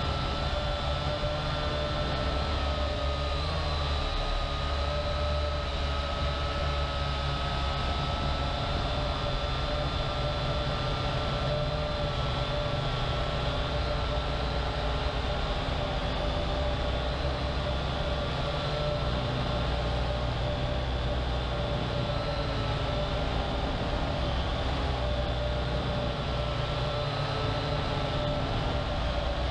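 Syma X8HG quadcopter's brushed motors and propellers running in flight, a steady whine of several tones whose pitch wavers slightly as the throttle changes, with a dip about three and a half seconds in. Heard close up through the GoPro on the drone, over a low rumble of air on the microphone.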